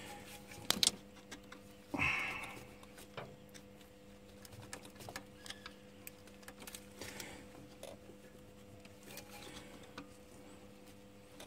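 Screwdriver prying and scraping at a bolted metal hose clamp, with a couple of sharp metallic clicks about a second in, a longer scrape at two seconds and small scattered ticks after. A faint steady hum runs underneath.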